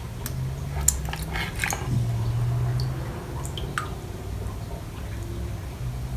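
Water splashing and dripping as a small hand net is drawn out of a glass fish bowl with a betta fish in it and carried to another bowl of water, with a cluster of splashy clicks in the first two seconds and a few light drips later. A low steady hum runs underneath.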